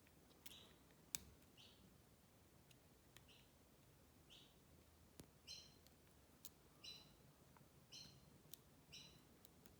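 Quiet lock picking: a pick and tension tool working in a Burg Wächter padlock held in hand, giving a few sharp light clicks, the loudest a little over a second in. Faint short chirps repeat about once a second behind it.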